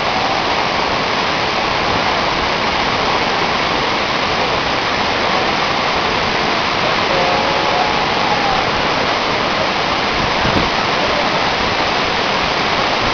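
Jog Falls on the Sharavathi River: a steady, unbroken rush of water plunging down the cliff into the gorge below.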